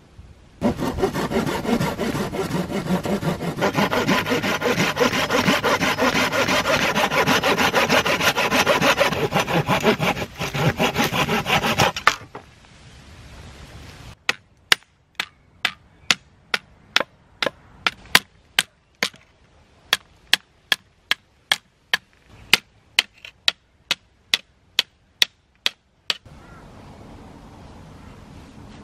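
Hand scraping, fast and continuous for about eleven seconds, then after a short pause a run of sharp separate ticks about twice a second for about twelve seconds.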